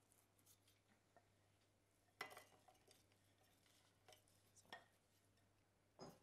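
A wooden spoon knocking and scraping against a ceramic mixing bowl and a cake tin as buttery biscuit crumbs are tipped into the tin. There are a few faint knocks and scrapes, the loudest about two seconds in and another just before the end.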